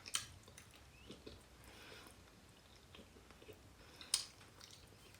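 A person chewing food close to the microphone: faint mouth sounds and short soft smacks, with one sharper click about four seconds in.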